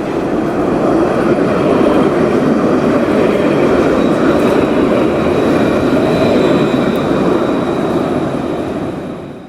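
Cable car rolling past, a steady rumble of wheels on rails with a faint high tone above it, fading away near the end.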